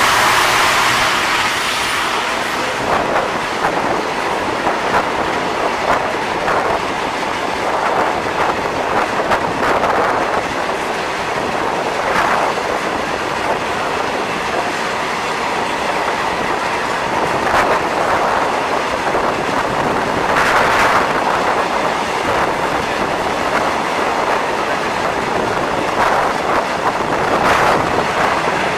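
RoRo freight train's loaded flat wagons rolling past at close range: a steady, loud noise of wheels running over the rails, swelling briefly a few times.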